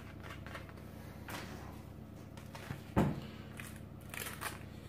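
Soft rustling of paper sanding sheets being handled, with one sharp knock about three seconds in.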